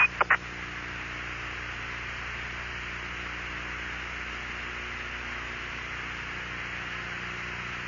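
Steady hiss with a low electrical hum from an open radio voice channel between transmissions.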